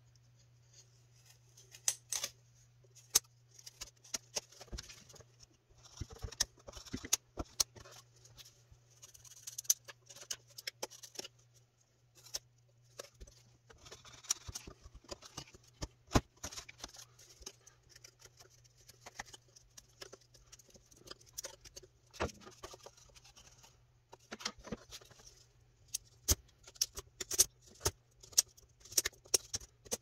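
Small carving knife whittling a softwood fan bird cut from a 2x4: irregular sharp clicks and short scraping cuts as chips come off the wood. A steady low hum runs underneath.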